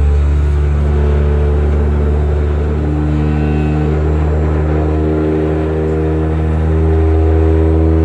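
Electric external shutter vibrator clamped to steel concrete formwork, running with a loud, steady low hum.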